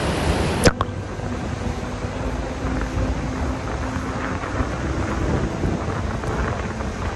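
Wind buffeting the microphone as a steady low rumble, with a faint hum under it. A sharp click comes about half a second in, where a hiss stops.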